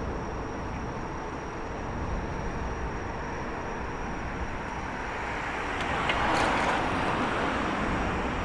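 Outdoor city traffic noise, with a vehicle passing close by about six seconds in, its sound swelling and then fading.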